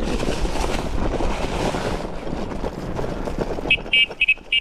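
A small vehicle's engine running with wind on the microphone, then, a little before the end, a horn tooted in quick, short beeps to drive the cattle.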